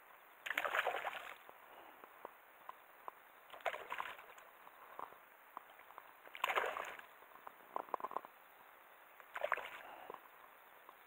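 Water sloshing and splashing in four short bursts about three seconds apart, with small sharp clicks between them.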